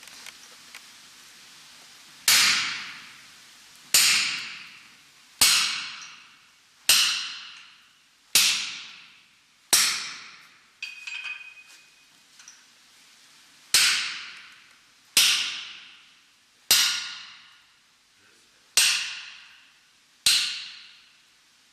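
Blacksmith's hammer striking on an anvil: eleven slow, evenly spaced blows, about one every second and a half, each ringing out and fading. Around the middle there is a short break with a lighter metallic clink.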